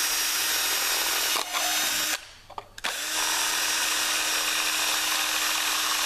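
Cordless drill running steadily with a 3.5 mm bit, drilling a clearance hole through an acrylic grille panel and vacuum-formed plastic case. It stops about two seconds in, and after a short pause with a few small clicks it starts again and runs steadily on.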